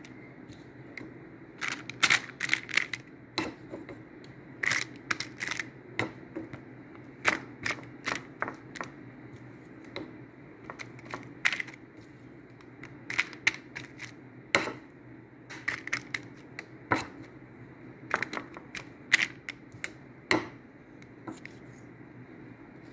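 Irregular sharp clicks and light taps, often in quick runs of two or three, from a brush working seasoned sauce over a salmon fillet and vegetables in a plastic-lined glass baking dish. A steady low hum runs underneath.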